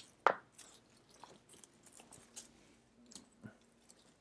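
Plastic masking sheeting with painter's tape attached (tape and drape) being handled and pressed along a grille's tape frame: faint scattered crinkles and ticks, with one sharper click about a quarter second in.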